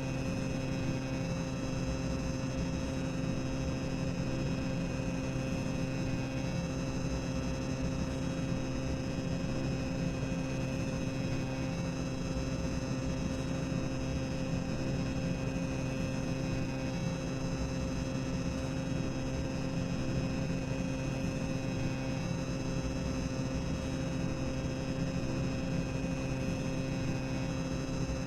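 Themed boiler-room ambience: a steady machinery hum and low rumble with a few constant tones held throughout.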